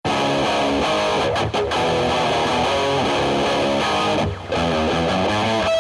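Background music led by guitar, with a brief dip in level about four seconds in.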